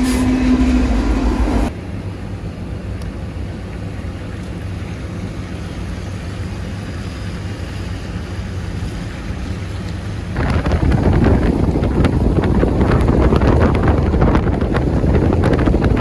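Train noise with a steady tone, cut off abruptly within the first two seconds, followed by the low steady rumble of a moving vehicle; about ten seconds in it gives way to louder rushing wind noise with crackling on the microphone.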